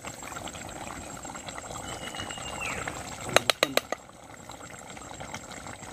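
Chicken curry simmering in a pot over a wood fire, a faint steady bubbling crackle. About three and a half seconds in, a metal spatula clinks against the pot four or five times in quick succession.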